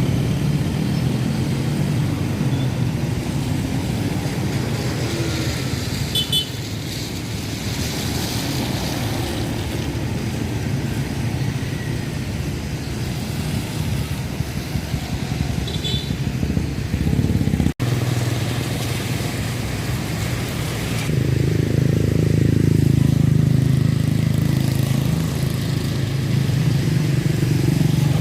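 Road traffic at an intersection: motorcycle and car engines running and passing, with a couple of short high-pitched pips, about six seconds in and again near sixteen seconds. The sound cuts out for an instant a little past halfway.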